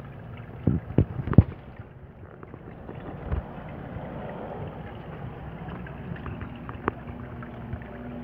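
Steady low hum with water noise from the tank's submersible filter pump, with three loud knocks about a second in and a single sharp click near the end.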